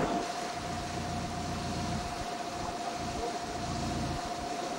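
Wind buffeting the microphone in uneven low gusts over a steady rushing noise, aboard a boat under way, with a thin steady high whine running throughout.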